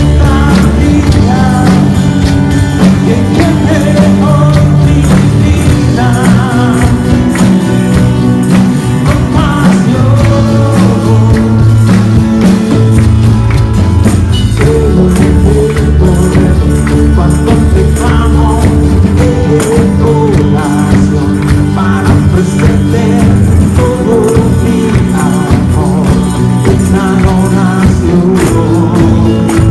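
Live church worship band playing drums, guitars and keyboard behind a sung melody, with tambourines shaken and struck in time by the dancers.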